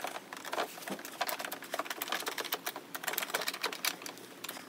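Hand screwdriver turning a screw into a white flat-pack furniture panel: a run of small, irregular clicks and ticks, several a second.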